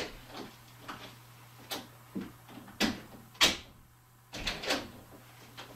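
An interior door opened by its handle, followed by a series of clicks and knocks, the loudest about three and a half seconds in.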